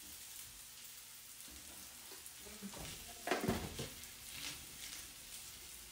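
Vegetables frying in a pan with a steady sizzle while a wooden spatula stirs them, with a louder knock about three and a half seconds in.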